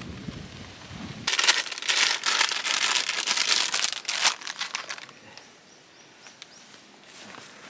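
Plastic packaging crinkling as it is handled, dense for a few seconds, then a few small clicks as the handling slows.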